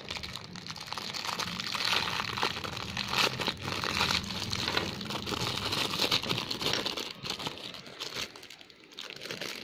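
Plastic packaging crinkling and rustling as it is handled, in irregular bursts that thin out near the end.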